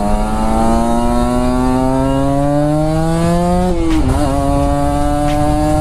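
A Kawasaki Ninja 150's two-stroke single-cylinder engine under acceleration. Its pitch rises steadily for about three and a half seconds, drops sharply at a gear change, then holds steady.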